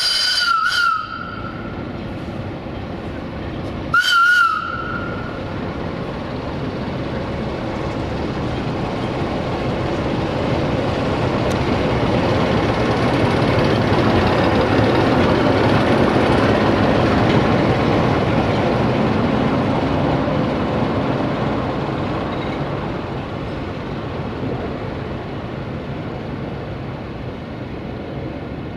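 CFR 060-DA (LDE2100) diesel-electric shunting locomotive sounding two short whistle blasts, one at the start and one about four seconds in. Its Sulzer diesel engine then grows louder as it passes close and slowly fades as it moves away.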